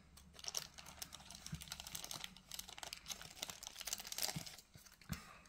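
Faint crinkling and small clicks of a clear plastic sleeve and plastic tray as a model train car is handled and lifted out of its packaging.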